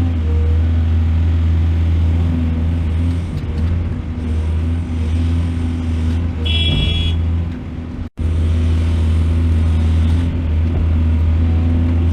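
Diesel engine of heavy earthmoving machinery running with a steady low drone. A brief high-pitched whine comes about six and a half seconds in, and the sound cuts out for an instant about eight seconds in.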